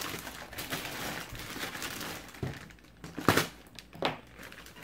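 Clear plastic bag around a brake rotor crinkling and rustling as it is handled and pulled open, with a few sharper crackles, the loudest a little over three seconds in.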